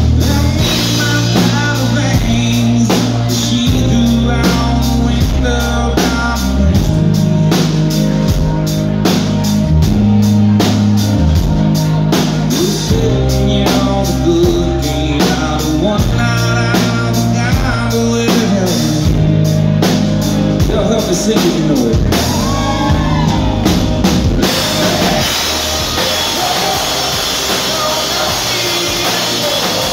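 A live country-rock band plays a steady drum-kit beat under bass, electric and acoustic guitars and keyboards, with no lyrics sung. About three-quarters of the way through the beat stops and a sustained wash of sound carries on.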